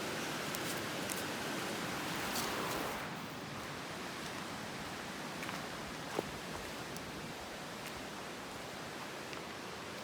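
Steady hiss of background noise that drops a little about three seconds in, with faint rustles and a small click about six seconds in.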